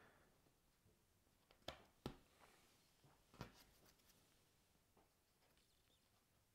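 Near silence, broken by a few faint clicks of cardboard jigsaw pieces being handled and set down on a wooden table, about two seconds in and again a second or so later.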